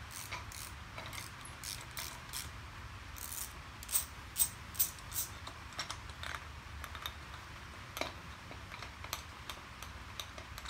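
Irregular metallic clicks and clinks of parts being handled as the finned piston housing is worked off a Dewalt D55168 oil-less air compressor, with a quick run of sharper clicks about four seconds in.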